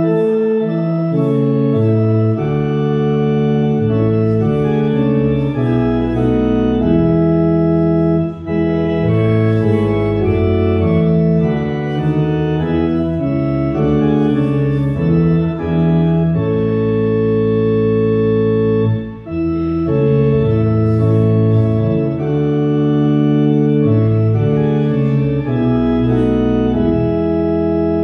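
Organ playing a hymn in steady held chords that change every second or so, breaking off briefly between lines about eight and nineteen seconds in.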